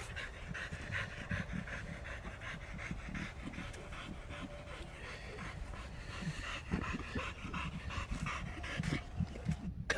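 American Pit Bull Terrier panting hard and fast in steady, rapid breaths, winded from long digging at a burrow.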